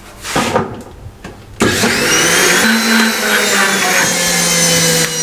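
Electric blender switched on about a second and a half in and running steadily, mixing milk with milk powder; its motor whine falls slightly as it runs. A brief knock comes before it starts.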